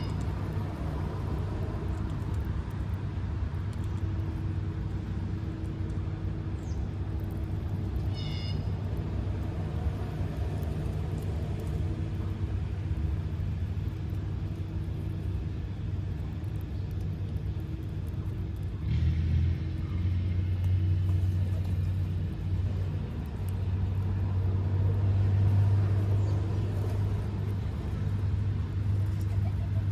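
Steady low rumble of road traffic, growing louder for the last third as heavier traffic passes. A short string of high chirps sounds briefly about eight seconds in.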